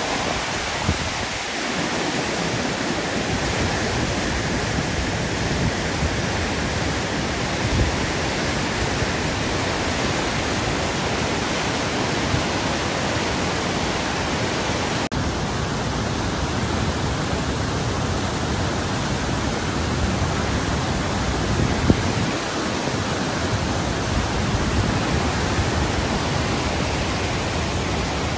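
A river in flood after heavy rain, muddy water rushing through rapids with a loud, steady sound of churning water. It cuts out for an instant about halfway through.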